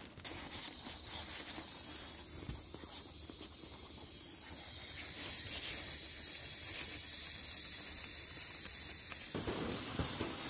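Air hissing steadily out of a nylon pump sack into a Sea to Summit inflatable sleeping mat as the sack is squeezed, slowly growing louder. Fabric rustling joins near the end.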